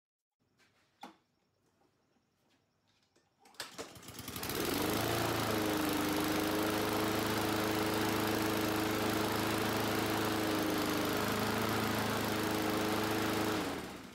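Honda GCV190 single-cylinder push-mower engine starting about three and a half seconds in, running steadily, then shutting off just before the end. The engine has just been reassembled after a repair for a broken exhaust rocker caused by the exhaust valve guide migrating out of the head.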